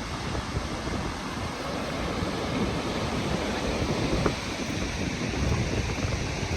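Steady rushing roar of the Gullfoss waterfall, with gusts of wind buffeting the microphone.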